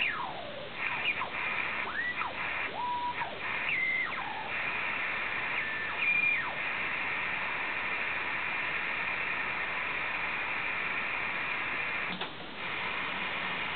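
Dancom R203 ship's communications receiver being tuned on a long wire antenna: for the first six seconds or so, whistles slide down and up in pitch as the dial passes signals, then steady static hiss. The hiss breaks off briefly about twelve seconds in.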